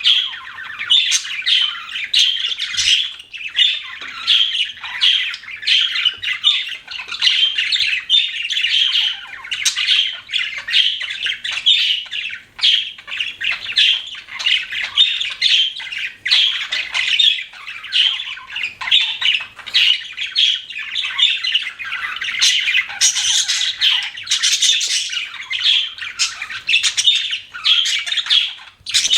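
Budgerigars chattering and chirping without a break, several birds calling over one another in a dense, busy twitter of short high notes.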